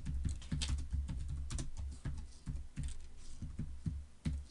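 Computer keyboard being typed on: a run of irregular keystrokes, quick at first, then slower and more spaced out, with the last one about four seconds in.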